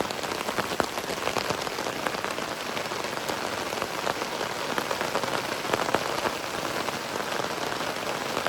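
Hard rain falling, heard from under a tent: a steady hiss with many separate drops striking close by.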